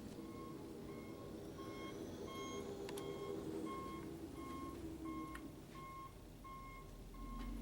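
Backup alarm of snow-clearing equipment beeping steadily, about one and a half beeps a second, as the machine reverses, over the low rumble of its engine. The beeping stops near the end.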